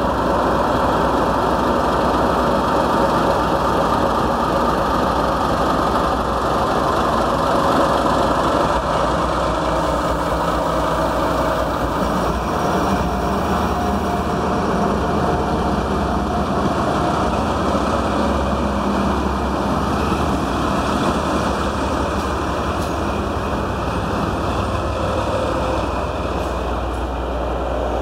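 Two JNR Class DD51 diesel-hydraulic locomotives coupled in tandem, their engines running under power as the train accelerates away from the platform. The loud mechanical sound holds steady throughout, and the coaches are rolling past near the end.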